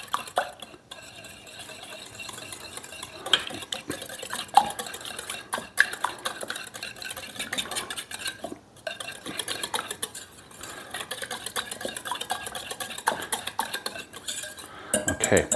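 Wire whisk beating a wet ricotta, milk and egg mixture in a stainless steel bowl: a steady, rapid clatter and scrape of the wires against the metal sides.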